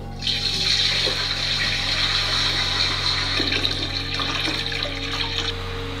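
Water falling and splashing in a miniature aquaterrarium waterfall, a steady rushing hiss that cuts off suddenly near the end.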